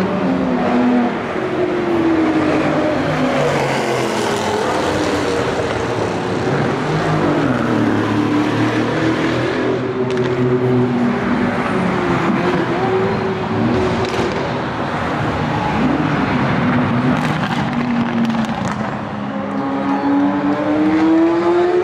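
High-performance supercar engines accelerating and revving. The engine pitch rises and falls several times, with a strong rise near the end.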